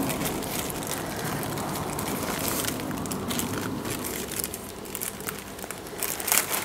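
Clear plastic bag and rolled diamond painting canvas rustling and crinkling as the canvas is rolled up and pushed back into the bag. The rustling is steady, with a few sharper crackles and a louder one near the end.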